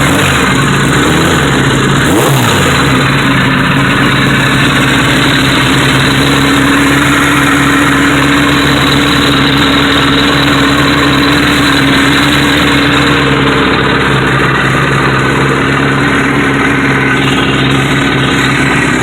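Suzuki GS1100E motorcycle's air-cooled inline-four engine idling steadily, with one brief rise and fall in revs about two seconds in. The owner finds it is making some unusual noise.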